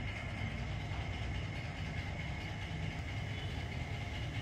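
Steady low rumble of outdoor street background noise, like traffic or an engine running at a distance, with a faint steady high whine over it.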